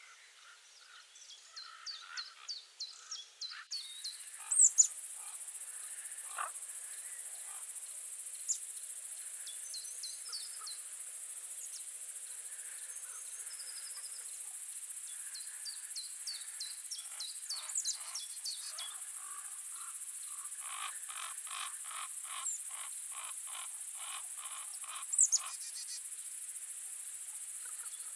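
Small birds calling and singing in short chirps and trills, with a steady high hiss coming in about four seconds in. From about twenty seconds a run of evenly spaced calls repeats about three times a second for several seconds.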